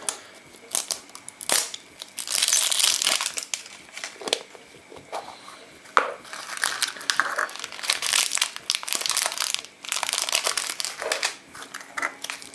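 Plastic wrapping on a plastic surprise egg crinkling and crackling in bursts as it is handled and peeled off, with a sharp snap about six seconds in as the capsule halves come apart. The crinkling goes on as the wrapped toy packet is pulled out.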